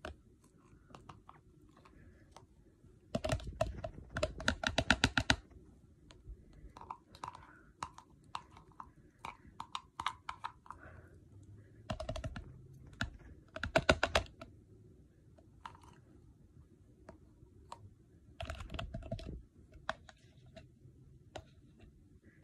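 Plastic fork clicking and scraping against plastic tubs while scooping thick hair conditioner, in scattered clicks with several short bursts of rapid clicking.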